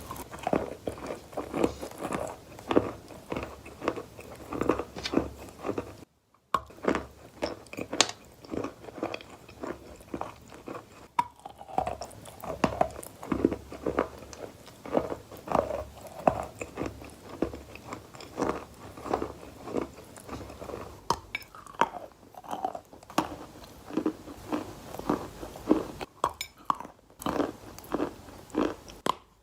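Close, wet and gritty crunching of a sand-like material, a quick run of short crunches about two or three a second, broken by a brief dropout a few seconds in.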